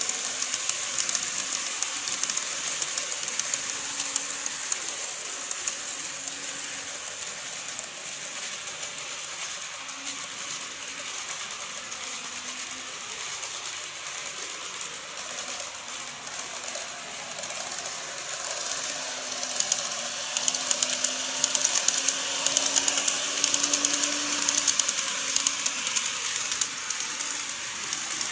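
Model freight train of Taki 1000 tank wagons running on the track: a dense, fine clicking rattle of small metal wheels over the rails with a faint motor hum. It fades a little midway as the train moves away and grows louder again in the second half as it comes back around.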